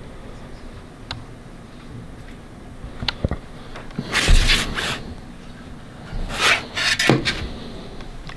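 Close handling noise at a counter: a few light clicks, then short scraping, rubbing knocks about four seconds in and again around six to seven seconds, as a hand moves a clear acrylic sign holder.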